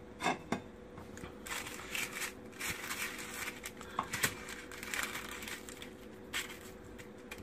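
Crispy air-fried chicken wing flats being handled and checked, giving irregular crinkling and crackling noises for several seconds, over a faint steady hum.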